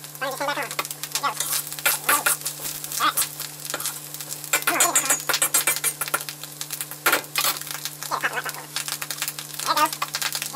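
Corn kernels frying in hot butter in a steel wok, sizzling with many sharp clicks and pops, while a metal utensil scrapes and clinks against the wok as the corn is stirred.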